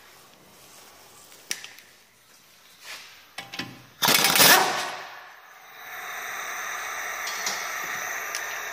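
Impact wrench firing in one short rattling burst about halfway through, after a few light metallic clicks, followed by a steady hiss that carries on.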